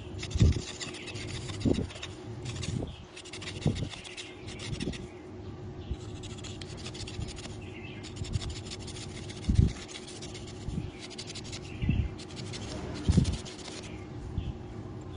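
Small knife blade scraping and shaving a thin bamboo stick in runs of quick rasping strokes, with pauses between runs. A few dull low thumps stand out louder.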